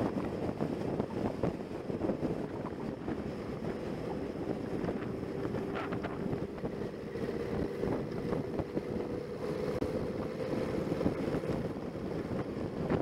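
Wind buffeting the microphone of a camera on a moving motorcycle, with the motorcycle's engine running steadily underneath; a faint engine tone holds through the middle.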